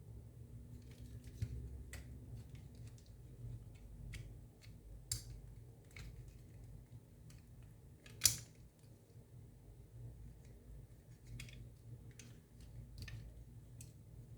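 Faint, scattered small clicks and taps of an Xbox controller's plastic shell and battery contacts being handled and pressed into place, with one sharper click about eight seconds in.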